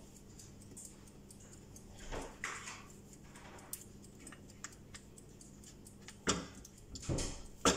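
A spatula scraping the last of the béchamel sauce out of a stainless steel saucepan, with a few short knocks against the pot; the sharpest knock comes near the end.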